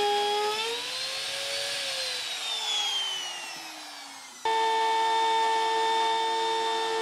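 Trim router running with a steady high whine while flush-trimming flooring around hatch openings. About two seconds in its whine slides down in pitch and fades as the motor slows. Midway it comes back suddenly at a steady pitch.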